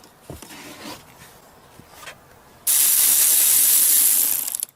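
Ratchet wrench spinning fast to loosen a bolt: a loud, rapid run of clicks starting a little past halfway and lasting about two seconds, slowing into separate clicks just before it stops. Quieter tool handling comes before it.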